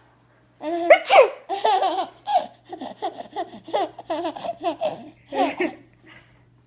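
A young child laughing, a long run of short, high-pitched bursts of laughter starting just under a second in.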